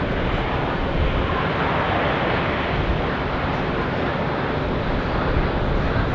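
Steady rushing airport noise with a low rumble: distant jet aircraft, with wind on the microphone.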